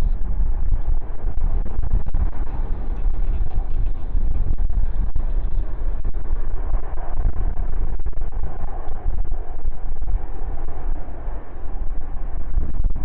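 Heavy wind buffeting the phone's microphone, loud enough to distort, over the engine noise of a jet, the Antonov An-124's turbofans; a hazy whine in the engine noise strengthens about halfway through.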